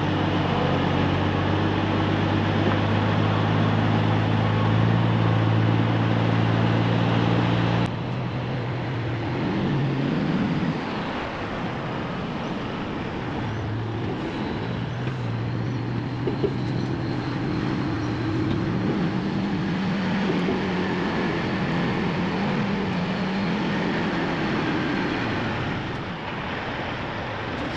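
Diesel engine of a semi-truck pulling a lowboy trailer loaded with a bulldozer, heard from the load as the rig moves slowly: a steady low drone. The sound changes abruptly about eight seconds in to a rougher, uneven engine note.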